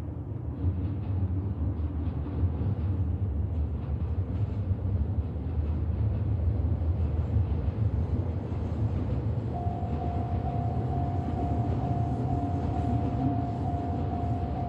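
Electric commuter train running past, a steady low rumble of wheels on rail. About two-thirds of the way through, the level crossing's warning alarm starts, a steady repeating ding at about two a second.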